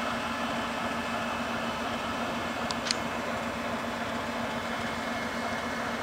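Freight train of tank cars rolling past on the rails, a steady rolling noise with a low hum. About three seconds in come two short, high squeaks close together.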